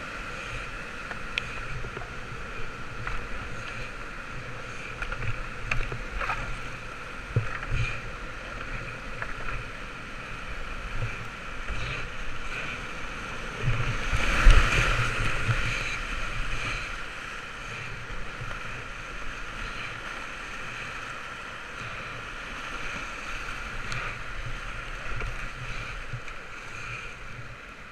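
Whitewater rapids rushing around a kayak, with scattered short knocks and splashes; the water surges loudest about halfway through as the boat drops into a stretch of white water.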